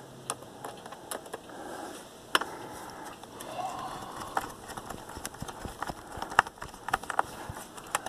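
Scattered light clicks and taps as the memory cover is fitted back onto the underside of a Dell Latitude D630 laptop and its captive screw is tightened with a screwdriver.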